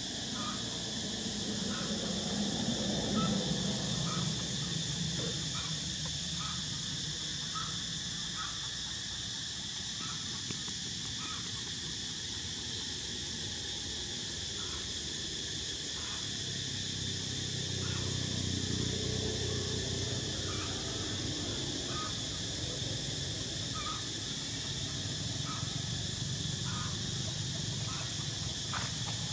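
Steady insect chorus: several high, shrill tones held without a break, with a faint short chirp repeating about once a second.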